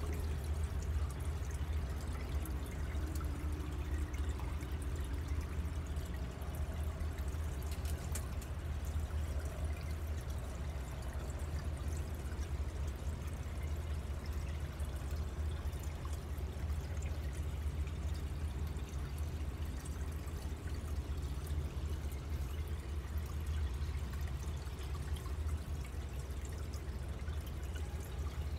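Water steadily pouring and trickling into a garden pond, over a constant low rumble.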